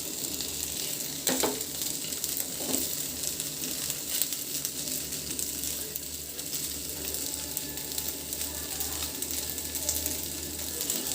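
Cornflour-coated chicken breast pieces shallow-frying in a little oil in a pan, sizzling and crackling steadily. Two light knocks sound about a second and a half and about three seconds in.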